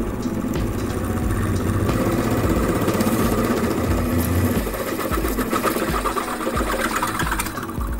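Powered machine drill running as a 10.5 mm twist drill cuts into the wall of a metal tube, steady motor hum with the grinding of the bit biting the metal. The cutting noise grows brighter about seven seconds in.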